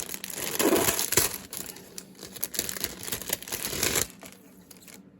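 Crinkling and rustling of the plastic bag of model-kit parts being handled, which stops abruptly about four seconds in.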